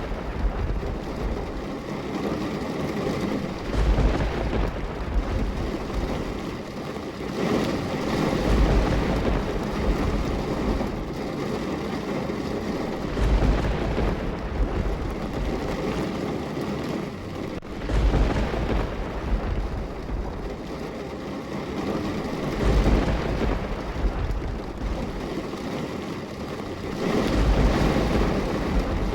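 Steady rain with deep rumbles that swell up about every four and a half seconds.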